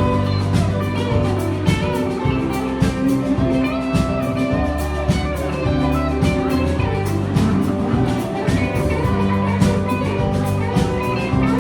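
Live band playing an instrumental passage of the song: guitar over bass and drum kit, with no singing.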